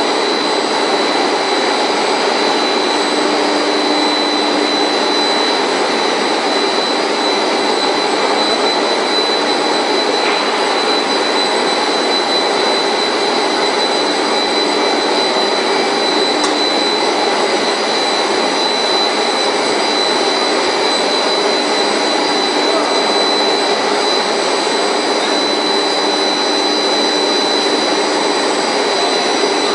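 Textile finishing machinery running steadily: a loud, even roar of motors and air with a constant high whine over it.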